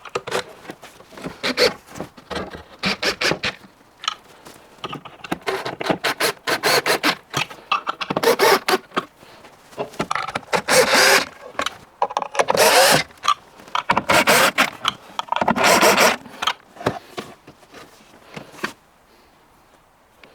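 Wooden cabinet panels being put together with quick-fit connector fittings: a run of sharp knocks and clicks, then several second-long bursts of a power tool's motor, the loudest near the middle, before it goes quiet near the end.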